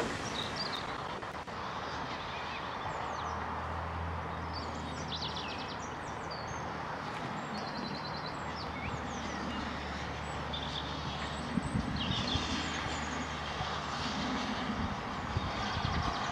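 Birds singing and trilling over the low, steady rumble of a distant steam train, which grows louder near the end as it draws nearer.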